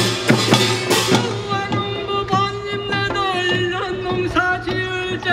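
Korean farm-band (pungmul) music: gongs and drums clash through the first second, then a wavering melodic line is held over sparser drum beats.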